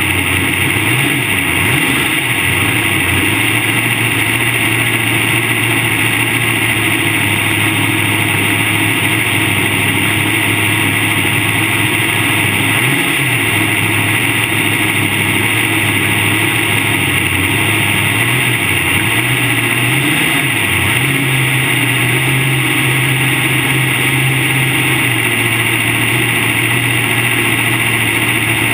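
Modified race car's engine idling loudly, heard from inside the cockpit, with a few brief throttle blips that lift its pitch, around two seconds in, near the middle and toward the end.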